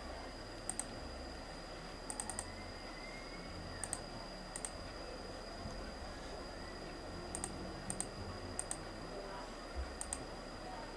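Computer mouse button clicking, one or a few quick clicks every second or two, over a faint steady high-pitched whine.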